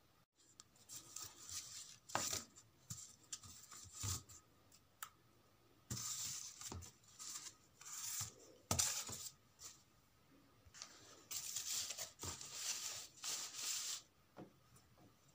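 Corrugated cardboard and brown paper being handled: irregular rustling and scraping in stretches of a second or so, with a few sharp knocks.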